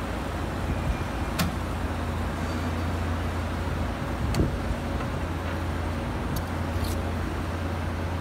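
Steady low electrical hum of a band saw blade butt welding machine, with a few short clicks and a knock about four seconds in.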